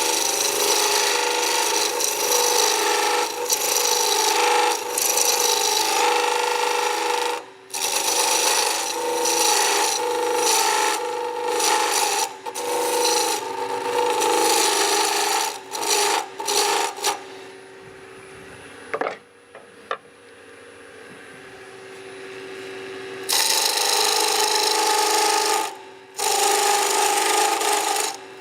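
A turning chisel cutting square wood stock spinning between centers on a wood lathe, tapering it down toward 3/4 inch in rough, scraping passes. The cutting breaks off briefly several times, and for about five seconds past the middle only the lathe's quieter running hum is left before the cutting resumes.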